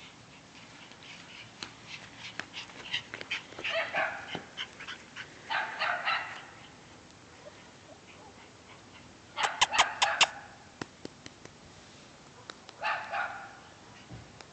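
Two cream Shiba Inus yipping and barking as they play, in several short bursts. The loudest is a quick run of four sharp yips about two-thirds of the way through.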